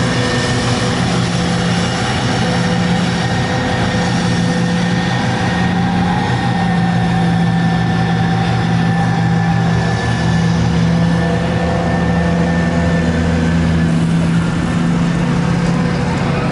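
Forage harvester and tractor diesel engines running steadily at working load while chopping maize, with a thin, steady high whine above the deep engine drone.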